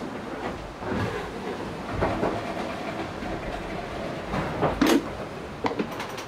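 Steady rumble and rush of an IMOCA 60 racing yacht sailing at sea, heard in its cockpit. A sharp knock comes just before five seconds in, and a few lighter clicks follow near the end.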